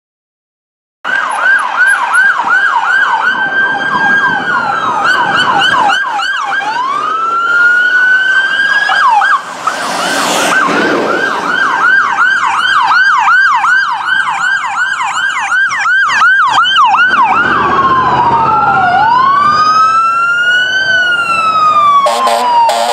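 Electronic sirens of fire trucks and an ambulance responding, switching between a fast warbling yelp and a slower rising and falling wail, with two sirens sounding together in places. Near the end a fire truck's air horns blast over the siren.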